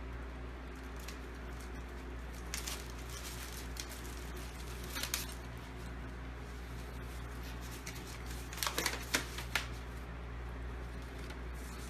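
A few short papery rustles and crackles, about three seconds in, about five seconds in and twice more near nine seconds, as a folded instruction sheet is taken out and opened. Under them runs a steady low room hum.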